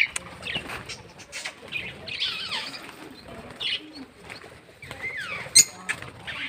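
A mixed flock of small cage birds (lovebirds, cockatiels and finches) chirping and calling together, short busy calls with no pause. Two sharp clicks stand out as the loudest moments, one right at the start and one about five and a half seconds in.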